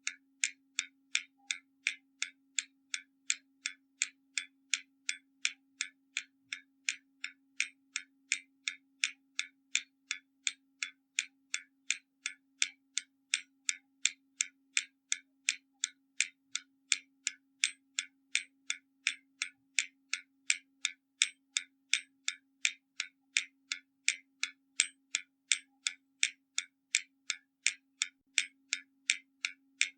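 Hermle mechanical skeleton clock ticking steadily, the escapement giving about two and a half sharp, bright ticks a second. A faint steady low hum lies underneath.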